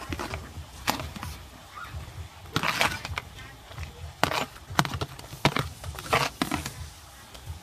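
Metal ladle clacking against a plastic colander and the pot as vegetable pieces are scooped up and dropped into a simmering pot. Several sharp, irregular knocks sound over a low, steady rumble.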